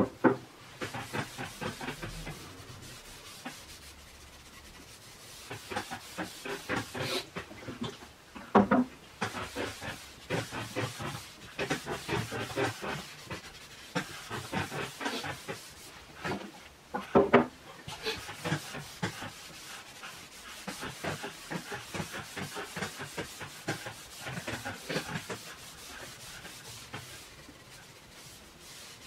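Cloth rag rubbed back and forth in quick strokes over a bare solid cedar board, wiping on an oil finish, with short pauses between runs. Two louder knocks stand out, about a third and about three-fifths of the way through.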